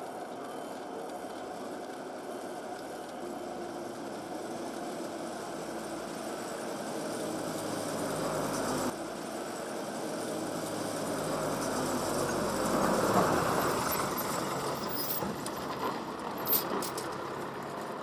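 Cable car haulage machinery running: a steady mechanical hum and rumble of the hauling rope over its pulleys, growing louder as the car comes in to the station. Several sharp metallic clanks and rattles come near the end as the car arrives.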